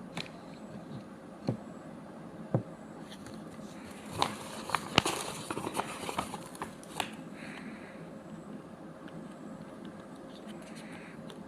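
Packaging and objects being handled: a few light knocks, then a flurry of clicks, scrapes and rustling about halfway through, before it settles back to quiet room noise.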